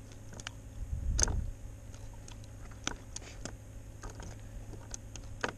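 Scattered light clicks and ticks, with one louder knock about a second in, from handling a hooked catfish and its fishing line at the side of a plastic kayak.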